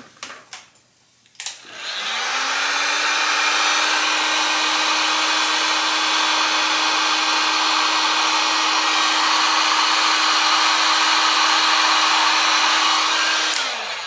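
Heat gun switched on about a second and a half in, its fan motor spinning up to a steady hum under the rush of blowing air as it shrinks heat-shrink tubing over solder joints. It runs about twelve seconds, then is switched off near the end and winds down.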